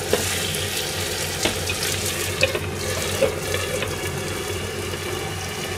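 Rice, chicken and vegetables sizzling and bubbling steadily in a frying pan over a high gas flame, the bottom left to catch into a crisp scorched crust (okoge). A few light clicks and knocks come as a glass lid is put on the pan.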